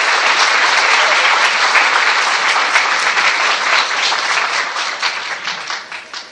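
Audience applauding: many hands clapping in a dense, steady patter that thins out and fades near the end.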